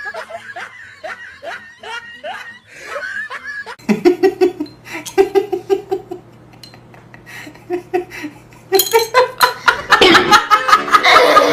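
People laughing in short repeated bursts, breaking into loud, hearty laughter about nine seconds in.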